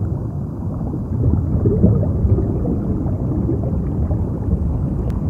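Steady, muffled low rumble of a boat running across water, with a churning texture and nothing in the high range; it grows a little louder about a second in.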